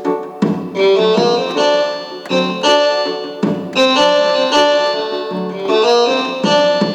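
An Arabic-style melody played on an electronic arranger keyboard using its rababa and zamr (reed pipe) voices, over a steady drum beat.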